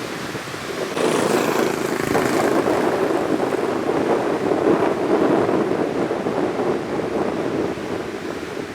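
Rough surf whipped up by the northeast monsoon, breaking and rushing ashore, with strong wind buffeting the microphone. A wave crashes about a second in, with a hiss of spray, and the churning rush carries on after it.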